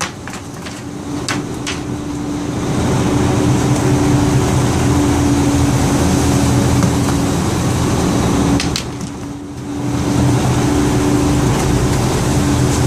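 Boat engine running steadily under wind and water noise, with a few sharp knocks in the first couple of seconds. The engine sound drops away briefly about nine seconds in, then returns.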